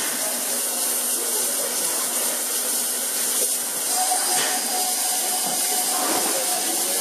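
Steady hiss of escaping steam from a standing Mallet narrow-gauge steam tank locomotive, with no exhaust beats. A faint steady tone joins the hiss about four seconds in.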